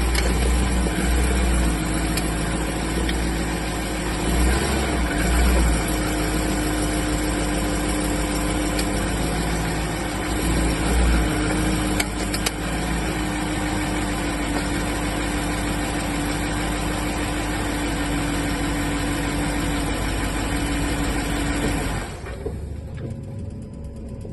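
Car engine idling steadily, with a few sharp clicks around the middle; the sound falls away sharply about 22 seconds in.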